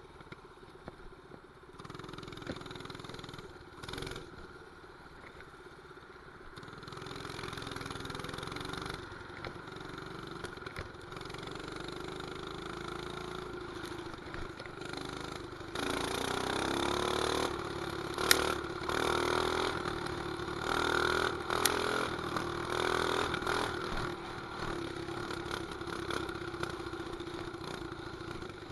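Mini bike's 212 cc single-cylinder engine running under way. It grows louder and rises in pitch as the throttle is opened about halfway through, with a couple of sharp clicks.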